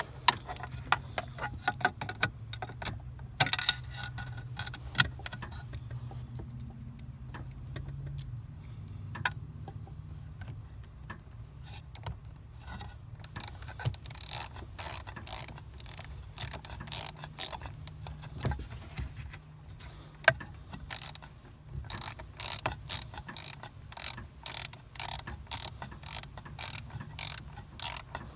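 Ratcheting hand tool clicking while fastening a cup holder mount inside a car. Scattered clicks come first, then from about halfway a steady run of clicks at about two a second, over a low steady hum.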